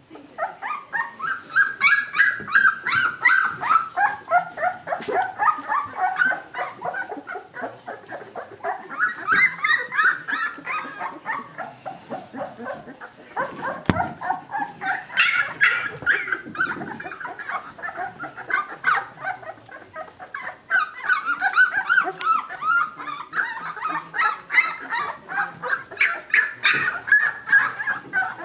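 Two-week-old Newfoundland puppies whining and yelping: a rapid run of short, high-pitched cries, easing off briefly a few times before picking up again.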